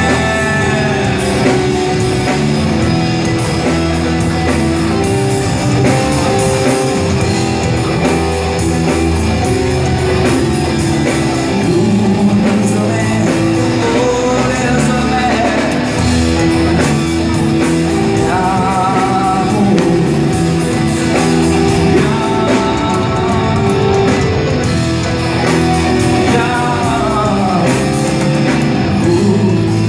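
Instrumental break of a rock song: full band music with guitar, steady and loud.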